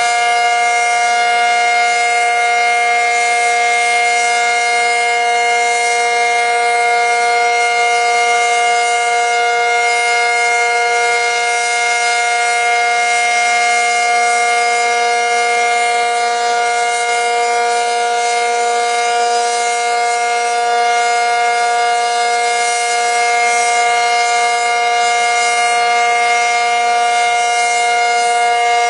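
ACA Cyclone 125 outdoor warning siren sounding its steady alert signal on a scheduled test: a loud, sustained chord of several pitches held at full speed, neither rising nor falling.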